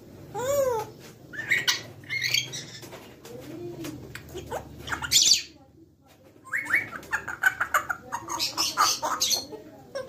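African grey parrots calling with a string of whistles, chirps and short squawk-like calls that bend up and down in pitch. An arched rising-and-falling whistle comes about half a second in. After a brief lull in the middle, a quick run of chirps follows.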